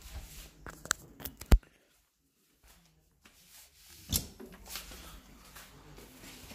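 Handling noise from a phone being moved about in the hand: knocks, clicks and rubbing against the microphone, the loudest a hard thud about one and a half seconds in, with a short stretch of near silence after it and another knock around four seconds.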